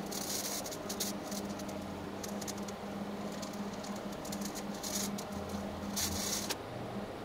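TIG welding arc on a steel cylinder: a steady low hum with short bursts of crackling hiss, one at the start and two more near the end.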